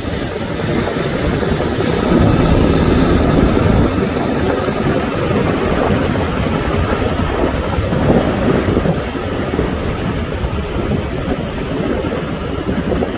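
Military helicopter flying over, a steady, loud rotor and engine noise that swells slightly about two seconds in.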